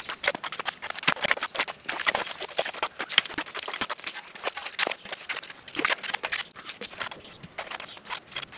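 Pickaxe and shovel digging in wet ground to re-cut a spring's channel: a steady run of irregular sharp strikes and scrapes, several a second.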